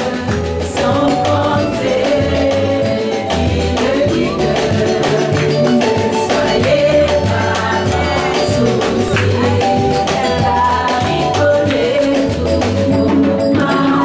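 A woman singing a worship song into a microphone over musical accompaniment with a rhythmic bass line and a steady percussive beat, with hands clapping along.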